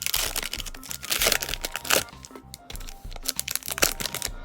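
Crinkling and crackling of a trading-card pack's wrapper and cards being handled, over background music.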